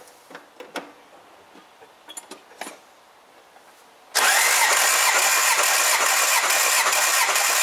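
After about four seconds of near quiet with a few faint clicks, a Toyota 22R four-cylinder engine is suddenly cranked over by its starter, a loud, steady cranking sound with an even rhythmic beat. It is being turned over for a compression test, with a gauge in cylinder three.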